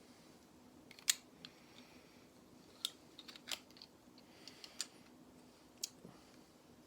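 Plastic Lego pieces being handled and pressed together: several sharp, irregular clicks, the loudest about a second in, over a faint steady hum.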